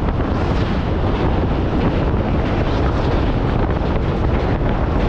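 Heavy wind buffeting the microphone at the open doorway of a moving local passenger train, over the steady low running noise of the train crossing a steel truss bridge.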